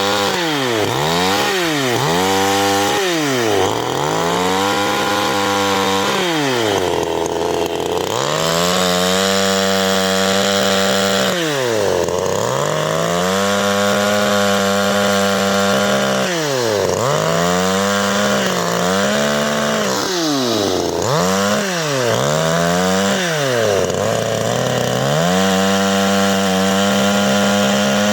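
CanFly 54.6 cc two-stroke chainsaw engine revving repeatedly: quick throttle blips and stretches of two to four seconds held at high revs, each time dropping back to idle.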